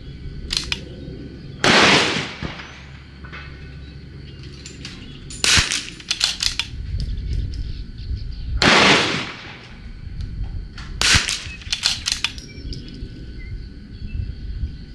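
Two .22 LR rimfire shots from a bolt-action CZ rifle, about seven seconds apart, each with a short echoing tail. Between the shots there are quick runs of metallic clicks from the bolt being worked to chamber the next SK Long Range round.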